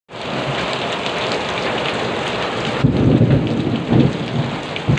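Heavy tropical downpour hissing steadily on tiled roofs. A deep rumble swells up about three seconds in and comes back briefly near the end.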